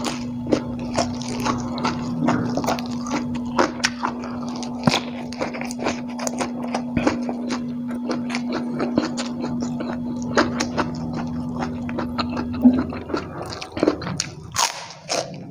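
Close-up mukbang eating sounds: wet chewing and lip smacks as a man eats rice, crispy egg in chilli sambal and vegetables by hand, many short irregular clicks and smacks. A steady low hum runs underneath and stops near the end.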